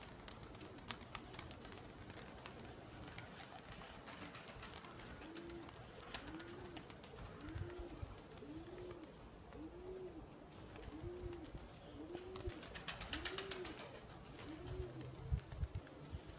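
A pigeon cooing, about nine rising-and-falling coos in a steady row roughly a second apart, starting about five seconds in. A short burst of rapid clicking comes near the end of the cooing, over a faint outdoor background.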